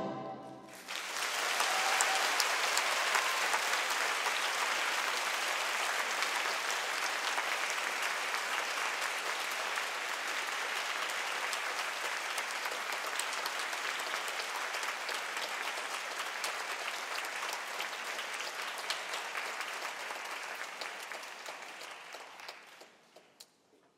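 Theatre audience applauding as the orchestral music ends: dense, steady clapping that starts about a second in, slowly thins, and dies away near the end.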